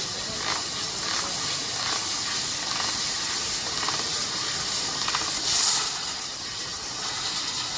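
CNC laser cutting machine cutting, with a steady high hiss of assist gas at the cutting head. A louder burst of hiss comes a little past halfway.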